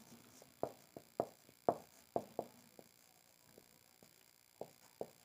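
Faint taps of a felt-tip marker on a whiteboard while a word is written: about six short strokes in the first two and a half seconds, then a pause, then two more near the end.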